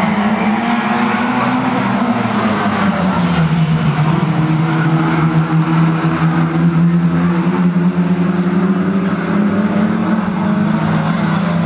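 A pack of banger-racing saloon cars running hard together, a loud, steady mix of several engine notes that drift up and down in pitch as the cars race past.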